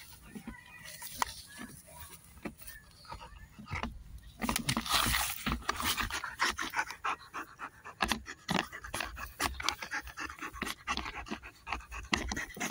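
Belgian Malinois panting fast and hard, growing louder from about four seconds in, while it tugs at a rubber toy.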